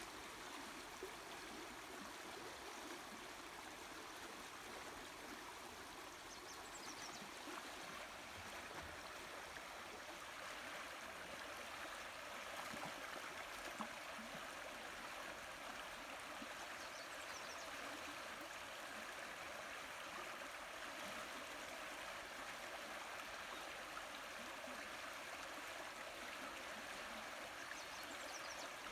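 Steady rushing of the Manistee River's flowing water, getting a little louder about ten seconds in.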